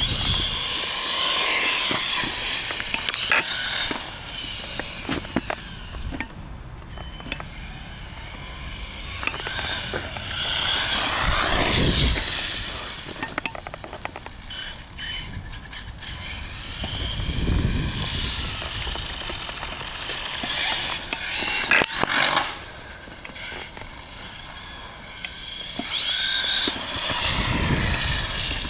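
Traxxas 1/16 E-Revo radio-controlled truck's electric motor whining up and down in pitch over several passes as it speeds up and slows, with tyre hiss over wet concrete. A sharp knock comes about three-quarters of the way through.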